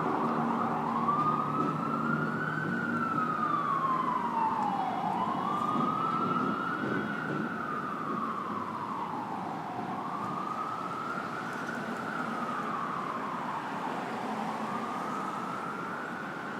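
Emergency vehicle siren in a slow wail, rising and falling about every four to five seconds and growing a little fainter toward the end, over steady city street traffic.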